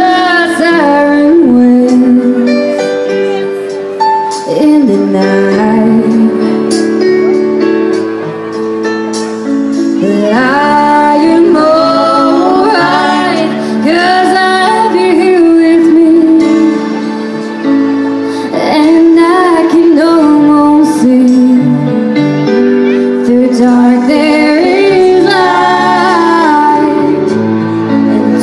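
A woman singing a slow song live into a microphone, amplified through a PA, with sustained instrumental accompaniment under her voice.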